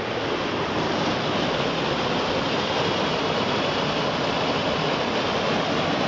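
Mountain stream rushing over rocks and small waterfalls: a steady, even rush of water.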